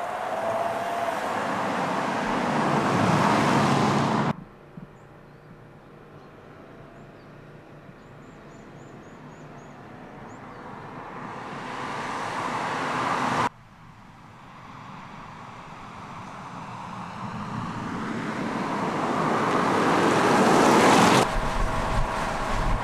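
Audi A4 saloon driving toward the microphone, its engine and tyre noise swelling steadily louder as it approaches. This happens in three takes, each cut off abruptly at its loudest.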